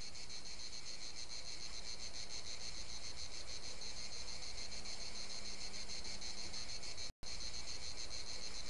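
Dense, steady chorus of insects chirring with a rapid high pulsing, cutting out for a split second about seven seconds in.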